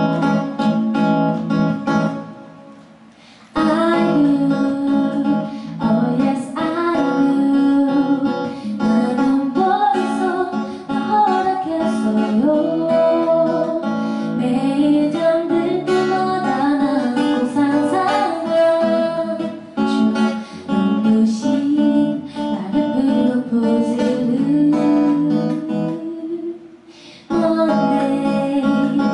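Acoustic guitar accompanying a woman singing, played live. The music drops away briefly twice, about three seconds in and again near the end.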